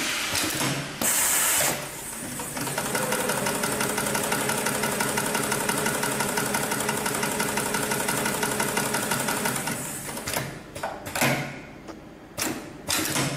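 GLK700-6040 industrial programmable pattern sewing machine stitching at a steady speed, its needle strokes in a fast even rhythm. There is a short hiss about a second in. The machine stops about ten seconds in, followed by a few sharp knocks.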